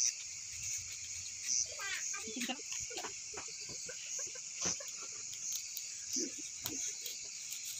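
Steady chorus of crickets trilling, with short crackles and rustles of banana leaves being folded into cones by hand.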